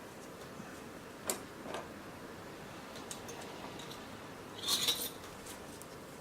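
Light clicks and clinks of small tools handled on an electronics repair bench: a sharp tick a little over a second in, a softer one just after, and a short cluster of brighter clinks about five seconds in.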